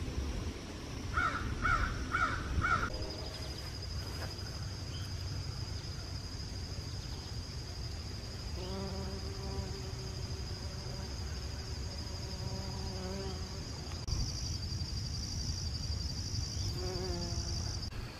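Late-summer insect chorus: a steady, high, finely pulsing trill that thickens about two-thirds of the way through. Early on, four short harsh calls come about half a second apart.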